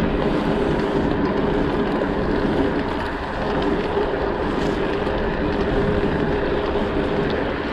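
Steady rush of riding noise: wind on the microphone over the drone of a dirt jump bike's tyres rolling on pavement.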